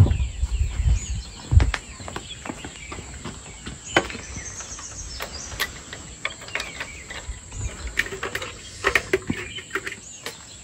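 Scattered metallic clicks and light knocks from hands working at the engine of a parked Luojia motorcycle that is not running, with a sharper knock at the start. Birds chirp in the background.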